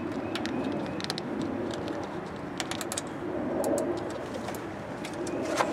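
A dove cooing in the background, low hoots that swell and fade a few times. Scattered light plastic clicks come from the corrugated wiring-harness loom being handled.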